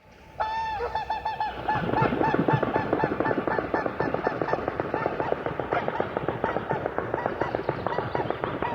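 Whooper swans in flight calling: a long honk about half a second in, then a rapid, overlapping run of bugling honks from several birds, with the rhythmic whoosh of their wingbeats underneath.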